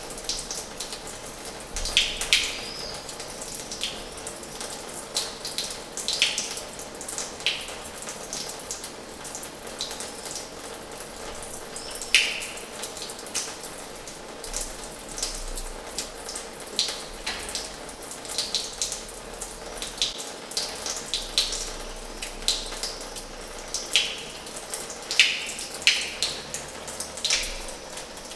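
Water running from the tap of an old washhouse into its basin: a steady splashing hiss with frequent irregular plops and drips, a few of them louder.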